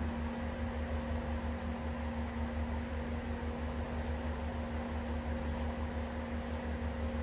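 Steady low mechanical hum, with a quickly pulsing low drone and a faint steady tone above it. There is a faint click about five and a half seconds in.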